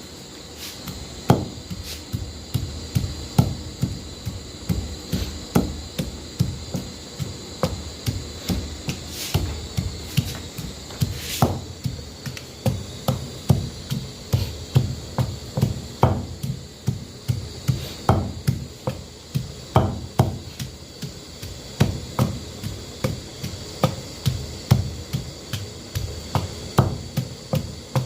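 Repeated dull knocks at a steady rhythm of about two a second, with a few sharper strikes among them: food being prepared on a hard surface.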